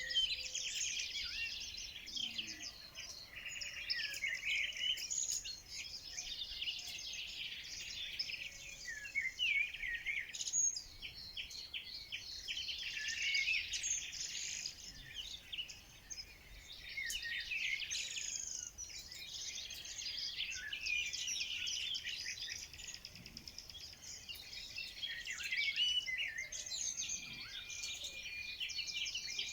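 Many birds singing and calling at once in a dense, unbroken chorus of chirps, whistled glides and rapid trills.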